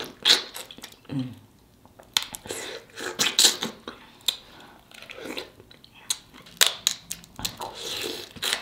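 Close-up mouth sounds of eating a sauce-soaked king crab knuckle: wet slurping, sucking and chewing, broken by sharp clicks and smacks.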